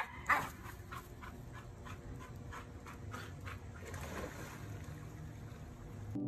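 A small dog's screaming yelp cuts off just after the start, followed by faint dripping and light splashing of water.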